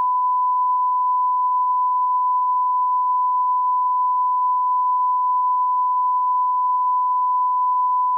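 A single steady beep tone near 1 kHz, held unbroken at one pitch with no other sound under it: a bleep laid over the footage's audio to mask it.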